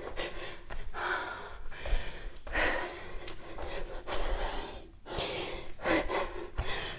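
A woman breathing hard through mouth and nose, with quick audible breaths about once a second, winded from jumping burpee-style exercise.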